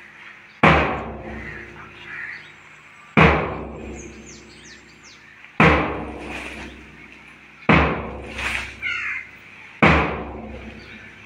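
Five loud, evenly spaced strikes, about one every two and a half seconds, each with a deep ringing decay.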